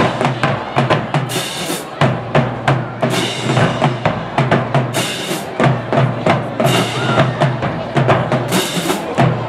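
Marching band drum section playing a driving beat: bass drums and snare drums, with cymbal crashes every second or two.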